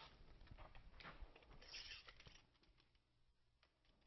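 Faint scratching and rustling as a line is marked on the shower tray along the edge of a drain channel support, with light handling of the support; it dies away to near quiet about three seconds in.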